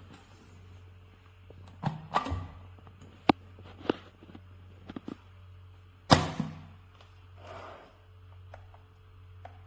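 A series of sharp knocks and clicks, the loudest about six seconds in, over a steady low hum.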